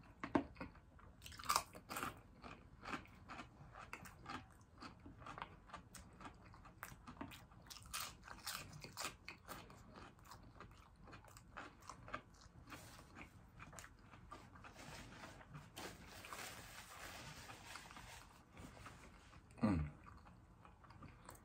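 Close-miked eating of extra-crispy battered fried fish and butterfly shrimp: repeated crisp bites and crunches with chewing throughout. Near the end a short vocal sound from the eater, falling in pitch, stands out as the loudest moment.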